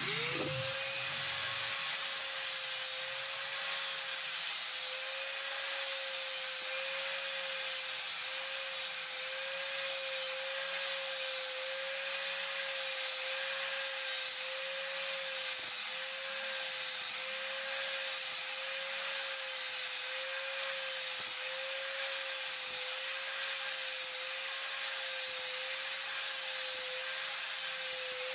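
Electric power tool spinning up sharply and then running steadily with a constant whine, together with an abrasive rubbing hiss.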